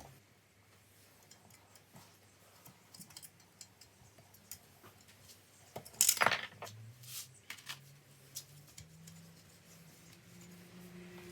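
Small metal parts and hand tools being handled on a workbench: scattered light clicks and ticks, with one louder metallic clink about six seconds in.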